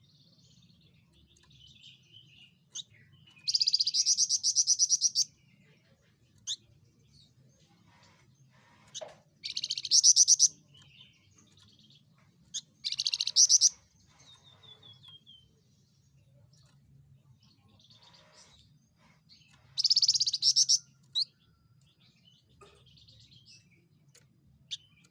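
Javan fulvetta giving loud, rapid chattering rattles, four of them about a second long each, with short high chips and a brief falling string of notes in between.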